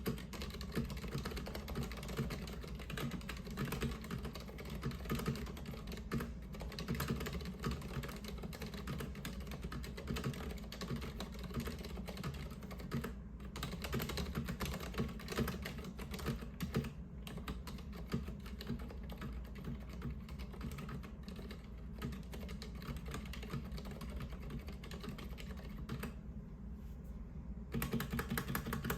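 Typing on a Mistel X-VIII mechanical keyboard with Cherry MX Silent Red switches, which are dampened linear switches. The keystrokes come in a fast, continuous run with a few brief pauses, the longest near the end, over a steady low hum.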